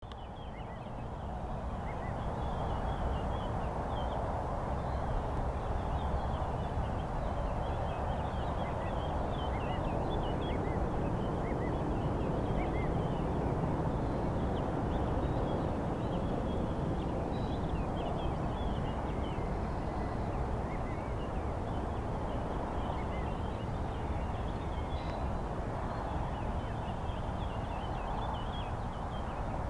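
Many short, high bird calls, scattered densely throughout, over a steady rushing background noise on an open river gravel bed.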